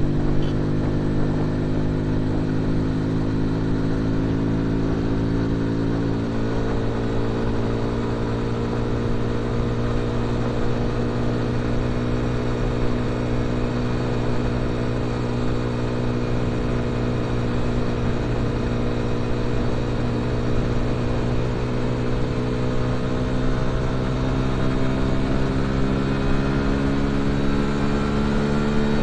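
Dayun Flasher 200 motorcycle engine running under way, its note climbing slowly and steadily as the bike gathers speed, over a constant rushing noise.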